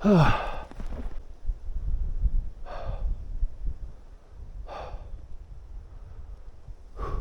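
A man breathing hard after a strenuous climb: a voiced sighing exhale with falling pitch at the start, then a heavy breath out about every two seconds, over a low rumble.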